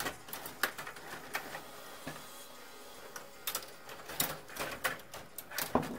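Table hockey game in play: irregular sharp clicks and clacks of the puck and the players' control rods, busier in the second half.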